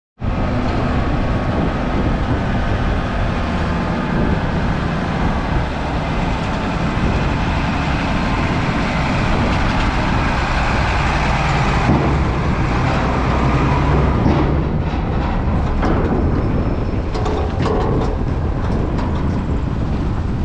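Heavy lorry driving off a ferry across the steel ramp, its engine growing loudest a little past the middle as it passes. Cars follow it across the ramp, with scattered knocks from the plates.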